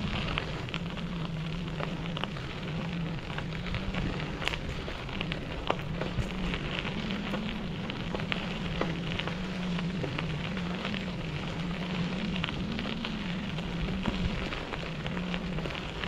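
Bicycle tyres rolling over a dirt and gravel trail: a steady crackle of grit and small stones with many scattered sharp ticks, over a low hum that wavers slightly in pitch.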